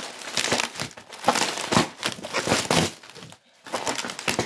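Large sheet of plastic bubble wrap crinkling and rustling as it is handled and pulled off during unwrapping, with a brief pause a little over three seconds in.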